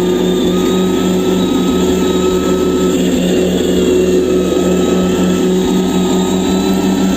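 Simulated engine sound from an RC crawler truck's sound module, running at a steady idle with a throb that pulses about three to four times a second.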